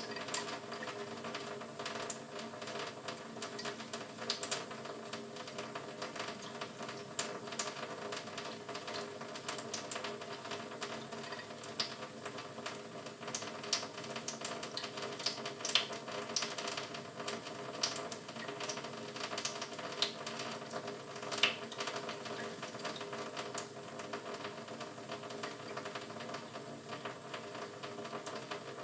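A canary bathing in shallow water in a sink: a dense, irregular run of small quick splashes and water flicks.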